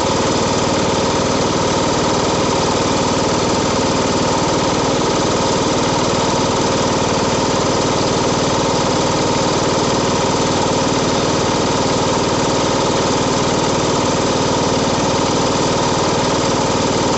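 Riding lawn mower's engine running steadily at an even speed.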